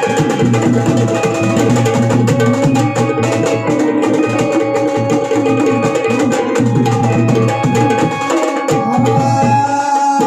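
Instrumental interlude of a Marathi folk song: quick, steady percussion strokes over sustained melodic instrument tones, with no singing.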